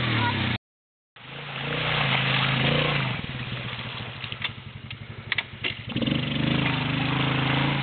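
Small quad ATV engine idling, with a short dead gap in the sound about half a second in. A few sharp clicks come in the middle, and the engine sound grows fuller again near the end.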